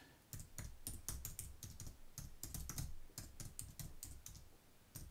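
Typing on a computer keyboard: a quick, uneven run of key clicks lasting about four seconds, then stopping.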